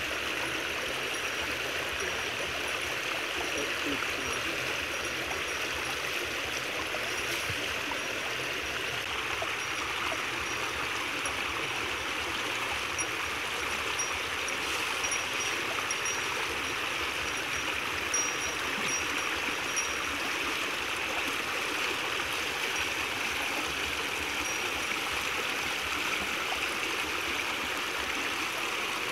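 Creek water rushing and splashing steadily through a narrow gap in a log-and-stick dam into a fishing net.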